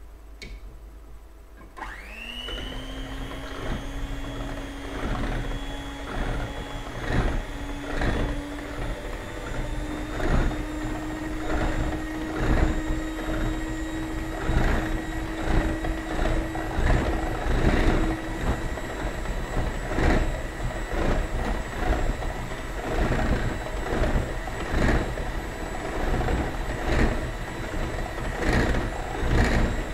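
Electric hand mixer switched on about two seconds in, its motor whining up to speed and then running steadily while it beats raw eggs. The pitch steps up a little partway through, and the beaters knock against the plastic bowl over and over.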